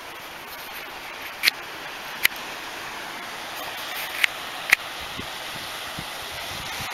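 Steady outdoor rushing hiss, with four short, sharp high clicks scattered through the first five seconds.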